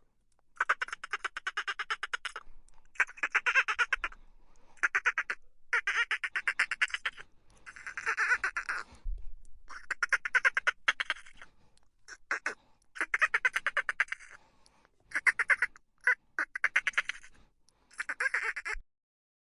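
A bird giving harsh, rasping calls in about a dozen separate bursts, each lasting around a second, with short gaps between them.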